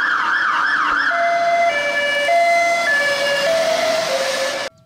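Fire engine siren on an emergency run. It begins as a fast yelp, sweeping up and down about twice a second, then about a second in switches to a two-tone, sounding a high and a low note in turn. It cuts off suddenly near the end.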